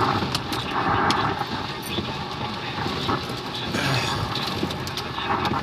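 Heavy rain beating steadily on a car, heard from inside the cabin, with scattered sharp clicks and crackles.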